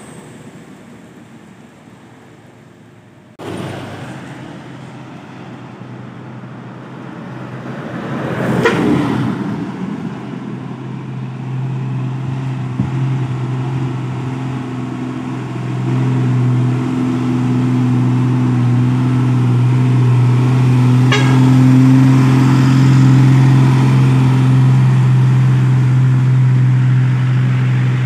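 Heavy diesel trucks loaded with sugarcane going by on a road. One passes about nine seconds in. From about halfway, a truck's diesel engine runs loud and steady at one pitch.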